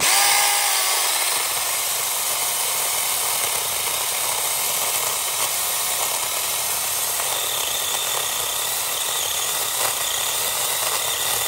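BeiHong 6-inch battery-powered mini chainsaw running steadily, its chain cutting through a lemon tree branch.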